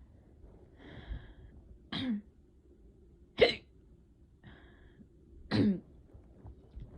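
A person hiccuping: three sharp hiccups in about four seconds, the middle one the loudest, part of a persistent bout of hiccups.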